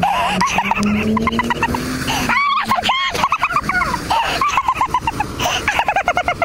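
A woman giggling hysterically in runs of rapid, high-pitched laughs.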